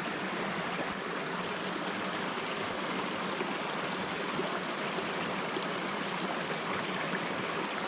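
Small mountain stream flowing over rocks: a steady, even rush of running water.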